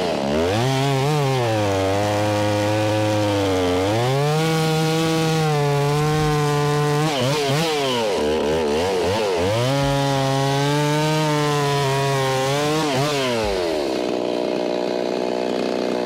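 Stihl chainsaw crosscutting through the end of a large white oak log. The engine revs up, its pitch sags as the chain bites into the wood, climbs and sags again through the cut, then drops back to idle near the end.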